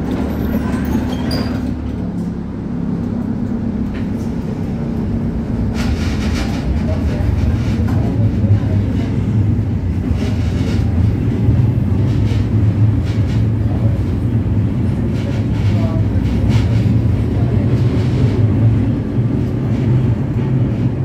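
Tatra T4R tram heard from inside the passenger car, moving off and running along the street track. A steady low motor-and-wheel rumble grows louder over the first several seconds as it gathers speed, with scattered clicks and rattles.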